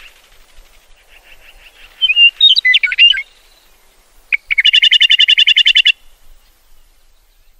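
Meadowlark singing: a loud phrase of slurred whistles that rise and fall, then a short note and a fast, even rattle of a dozen or so notes a second, over faint trilling in the background.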